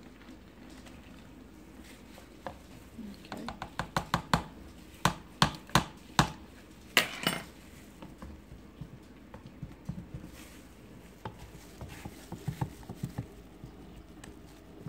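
Wooden stir stick knocking and clicking against a clear plastic tub while stirring titanium dioxide into melted glycerin soap. A run of sharp knocks comes a few seconds in, with a short scraping rasp, then lighter clicks later on.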